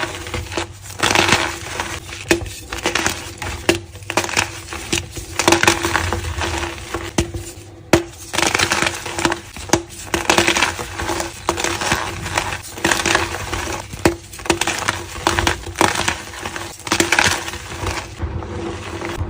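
Blocks of reformed gym chalk being crushed and crumbling, a run of crunchy, gritty bursts with sharp cracks of breaking pieces.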